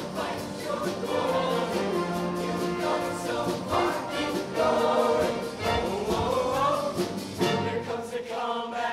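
A mixed show choir singing in full harmony over instrumental accompaniment with a steady beat.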